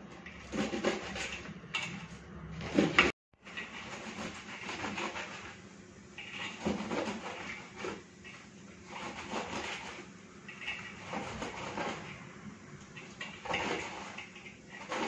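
Kitchen knife chopping saag greens against a metal plate: uneven knocks and scrapes of the blade on the plate. The sound cuts out for a moment about three seconds in.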